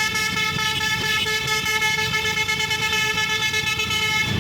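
Bus basuri (telolet) air horn holding one long steady chord, which cuts off near the end.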